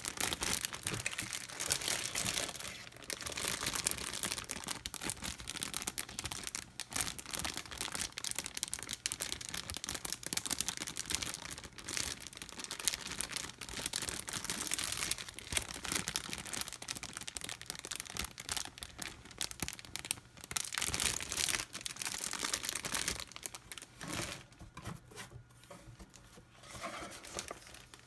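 Clear plastic bags around model-kit runners crinkling and rustling as they are handled and shuffled. The crinkling thins to sparser rustles over the last few seconds.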